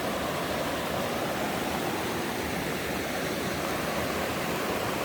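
Fast-flowing mountain river rushing steadily, with an even roar of churning water from a strong current.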